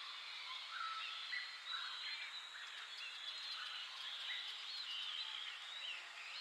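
Many small birds singing and chirping at once, with quick, warbling overlapping notes over a steady hiss of outdoor ambience.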